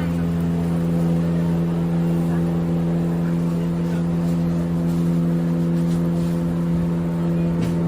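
A steady motor hum holding one unchanging pitch.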